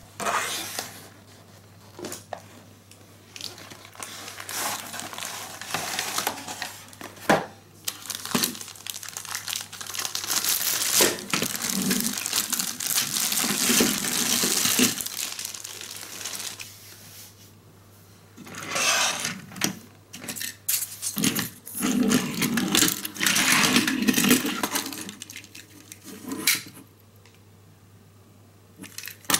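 Plastic packaging bag crinkling and rustling as a Plarail toy train is unwrapped, with clicks and knocks of the hard plastic train cars being handled and set on a table.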